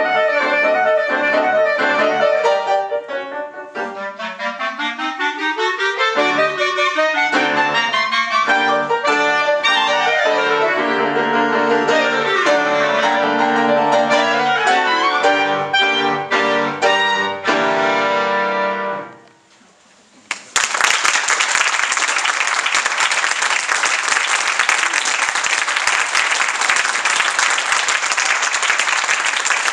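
Two clarinets with piano play the final bars of a klezmer-style piece, with a clarinet glide up and back down about four seconds in; the music ends about nineteen seconds in. After a short pause the audience applauds steadily.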